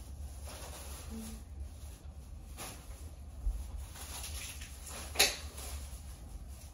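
Small knocks and rustles as trash is gathered up, with one sharp tap about five seconds in, over a steady low hum.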